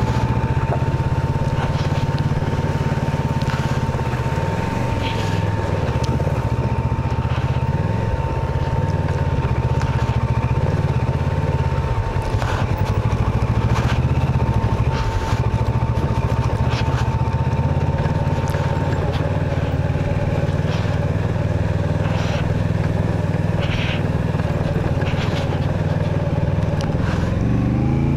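Kawasaki Versys 650 parallel-twin engine running steadily under way, its pitch shifting a few times and rising near the end as it revs up. Scattered clicks and knocks sound over it, and a thin steady whine runs alongside until about two-thirds of the way through.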